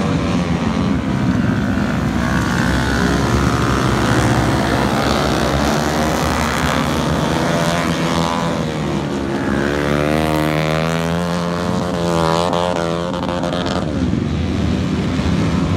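A pack of flat-track racing motorcycles running at race speed around a dirt oval, their engine notes rising and falling as they go through the turns. The engines are loudest and sweep up and down in pitch from about 8 to 13 seconds in, as bikes pass close by.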